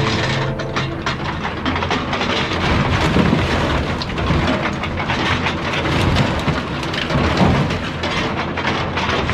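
Excavator demolition grapple crushing and tearing a car body: a dense run of crunching, crackling sheet metal and breaking parts over a low rumble.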